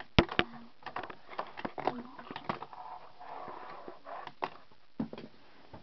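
Fingerboard clacking against a hard surface: two sharp taps just after the start, then scattered lighter clicks and scrapes as it rolls and lands.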